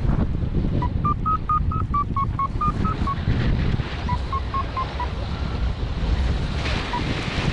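Paragliding variometer beeping in quick short tones, about five a second, shifting up and down in pitch: the vario's climb signal that the glider is in rising air. The beeping pauses briefly a few seconds in, resumes lower and stops about five seconds in, over a steady rush of wind on the microphone.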